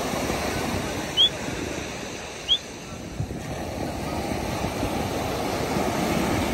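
Sea surf breaking and washing up a sandy beach: a steady rush that eases off around the middle and builds again toward the end. Two short, high, rising chirps stand out about a second and a second and a half apart near the start.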